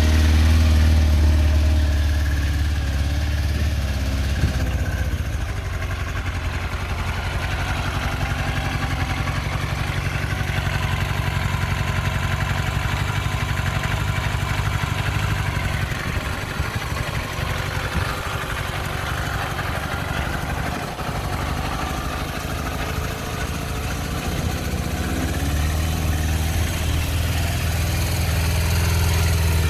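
1994 Yamaha YZF750R's inline-four engine idling.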